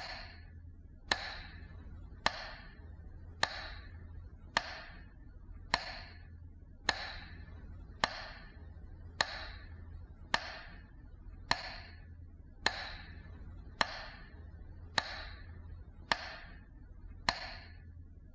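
Metronome ticking slowly and evenly, about one beat every 1.15 seconds. Each tick is a sharp click followed by a ringing, echoing tail. It is the beat marking a minute of silence.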